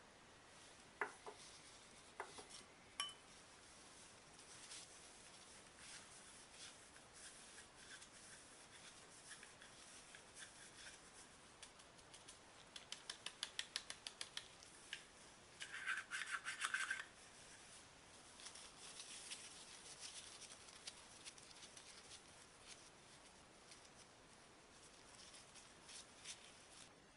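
Faint handling sounds from dusting a plastic plunger mooncake mold with starch. A few light clicks come in the first three seconds, a quick run of light taps about halfway through, then a second or so of rubbing.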